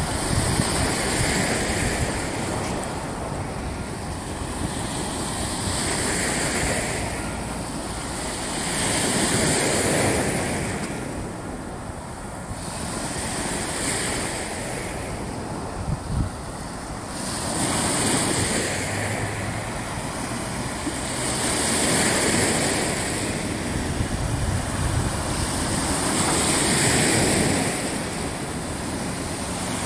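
Lake waves washing in, the sound swelling and falling back every few seconds, with a low rumble of wind on the microphone.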